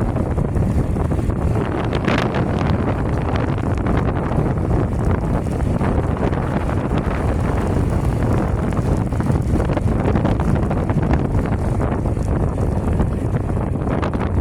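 Wind buffeting the microphone: a steady, loud low rushing rumble.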